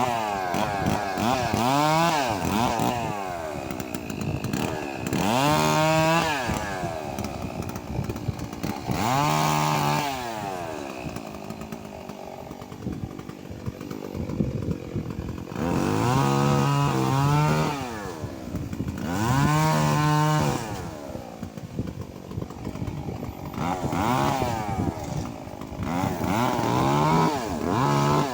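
Stihl 381 two-stroke chainsaw cutting a fallen mahogany trunk, revving to full throttle and dropping back about seven or eight times.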